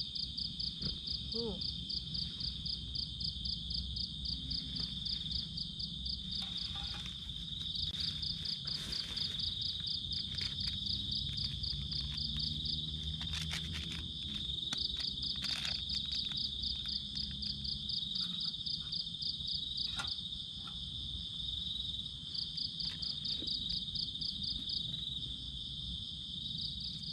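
Insects calling: a steady high drone with a rapid pulsed trill over it that comes and goes in bouts of a few seconds, and a low hum underneath.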